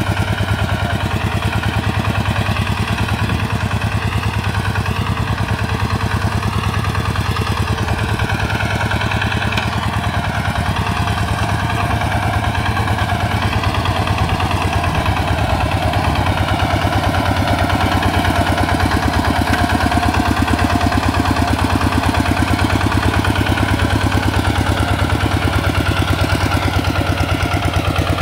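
Single-cylinder diesel engine of an RT 140 Plus hand tractor running steadily with a fast, even firing beat, getting a little louder past the midpoint.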